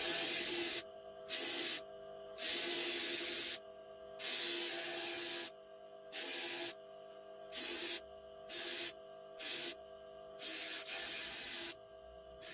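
Bench disc sander running with a steady hum while a wooden knife handle is pressed against the spinning disc in repeated short passes, each pass giving a burst of sanding hiss, about ten in all.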